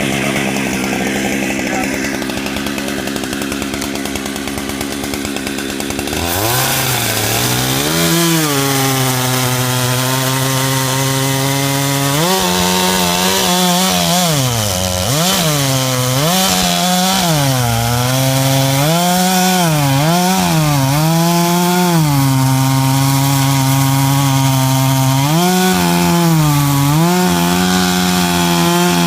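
Chainsaw running at speed. About six seconds in, its pitch begins to sag and recover again and again as the chain bites into a log, cutting it to length.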